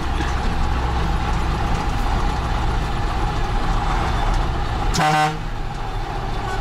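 Ural 4320 truck's diesel engine running steadily, heard inside its cab. A vehicle horn gives one short toot about five seconds in.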